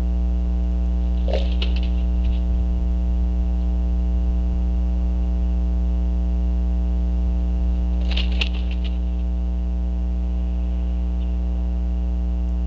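Bald eagle giving two brief bursts of short, high-pitched calls, one about a second in and another about eight seconds in, over a loud, steady electrical hum from the nest camera's audio.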